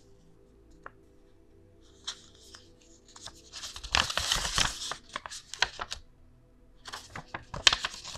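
A folded paper instruction leaflet rustling and crinkling in the hands as it is unfolded and folded. The loudest spell comes about four seconds in, with sharp crackles again near the end.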